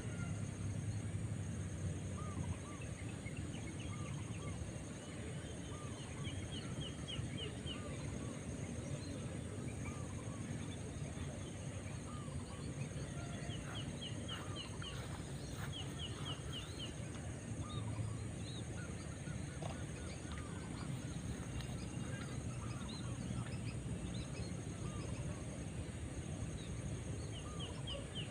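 Outdoor ambience with birds calling: scattered short arching notes and several quick runs of rapid high chirps, over a steady background hiss.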